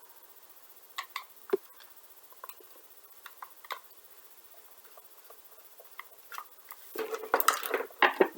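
Sparse small clicks and taps of a screwdriver and plastic gel blaster parts being handled, turning into a busier clatter of parts being worked loose about seven seconds in.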